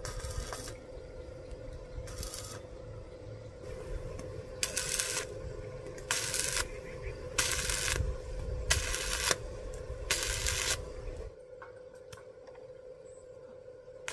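Stick welding on a square steel-tube frame: the arc crackles in short bursts of about half a second, about seven of them a second and a half apart, as tack welds are laid at the joints, over a steady hum. It goes quieter near the end.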